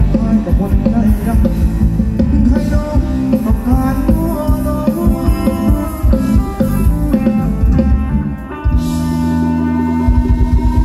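Live band dance music for Thai ramwong, with a fast steady drum beat and melody. About eight and a half seconds in, the beat stops under held notes, then comes back near the end.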